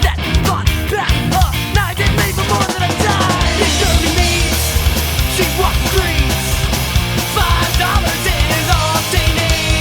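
Rock band recording playing loud and dense, with a full band of guitars, bass and drums.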